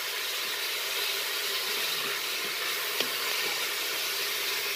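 Shredded zucchini sizzling steadily in hot oil as it browns, with a single light click about three seconds in.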